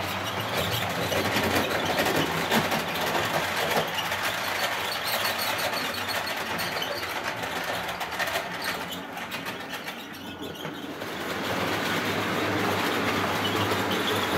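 Model railway train running on the track, with a steady small-motor hum and the wheels rattling along the rails. It fades a little past the middle and builds up again near the end.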